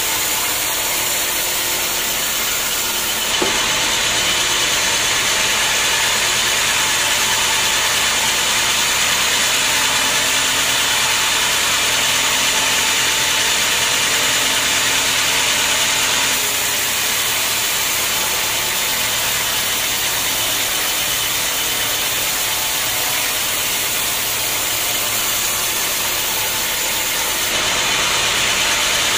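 Band sawmill running steadily, its blade cutting squared teak timber. The noise steps up a little about three seconds in, drops back about halfway through, and rises again near the end. There is a single short click at the first step.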